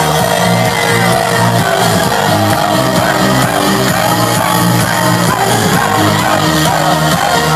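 Loud electronic dance music from a live DJ set over a concert sound system, with a steady, evenly repeating beat and bass line. Crowd voices sing and shout along over it.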